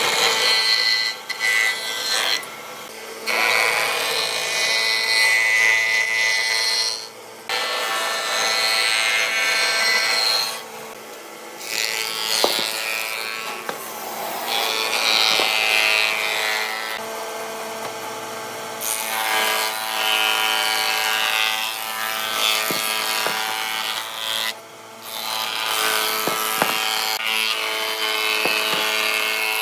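Combination jointer-thicknesser wood planer running with a steady motor whine, its cutter head planing old hardwood boat timber in several passes. The rough cutting noise rises and falls as pieces are fed through, with scattered sharp clicks and a few abrupt breaks.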